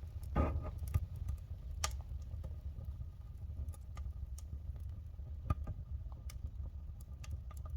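Oak and spruce wood fire crackling in a fireplace, with scattered sharp pops over a steady low rumble, the bottom air opening just opened so the fire draws faster.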